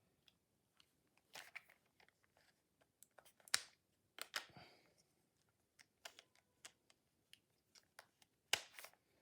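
Faint scattered clicks and knocks of a Bosch IXO cordless screwdriver's plastic head attachment being handled and turned to a new angle, with a few sharper clacks.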